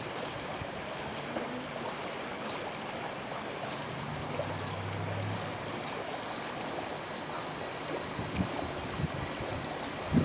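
Steady rush of flowing stream water. A low hum comes in for about a second and a half near the middle, and there are a few soft thumps near the end.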